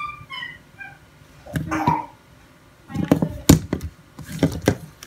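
Plastic Ericsson mobile phone clicking and knocking against a laminated tabletop as it is handled and turned over, a series of sharp taps in the second half. A few short high chirping tones sound in the first second.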